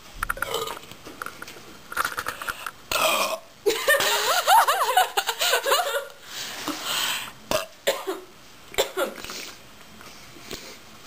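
Contest burping after chugging Coke: a few short burps, then about four seconds in a long burp of around two seconds with a wavering pitch, followed by a couple of shorter ones.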